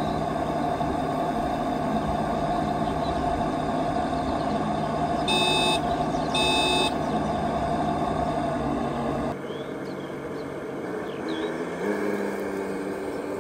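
A steady vehicle engine idle hum, with two short electronic beeps about five and six seconds in. The hum cuts off suddenly about nine seconds in, leaving quieter outdoor sound with a few bird chirps.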